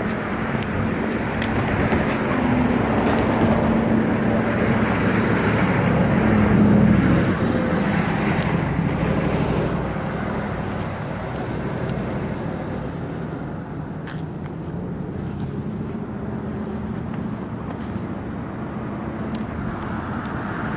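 Road traffic: a motor vehicle passing by, its engine and tyre noise growing to its loudest about seven seconds in and then fading away.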